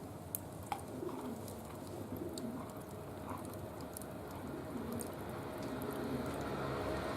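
A dove cooing in soft low notes, with occasional sharp snaps and pops from the wood fire burning in a barbecue grill; the two loudest snaps come within the first second.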